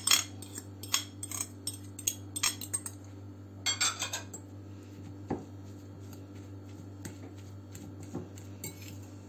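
Metal fork clinking and scraping against a glass bowl as it mashes crumbly cheese: rapid clinks for the first four seconds or so, then a louder single clink and sparser taps. A steady low hum runs underneath.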